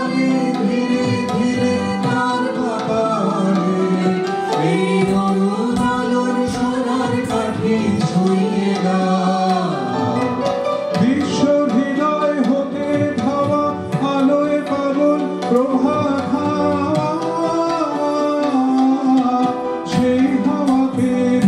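Live Indian music: tabla drumming with harmonium and keyboard playing the melody.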